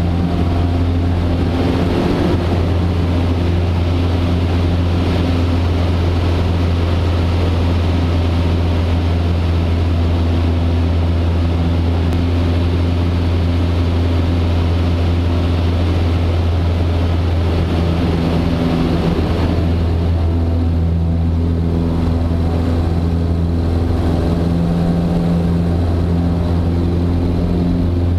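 Super Decathlon's four-cylinder Lycoming engine and propeller droning steadily, heard from inside the cabin in flight, with a strong low hum and the rush of airflow over it. About twenty seconds in, the high rush of air eases somewhat while the engine drone carries on.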